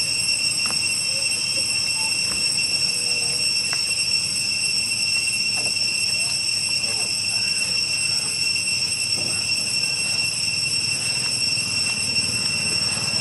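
Cicadas droning steadily at one high pitch, without a break.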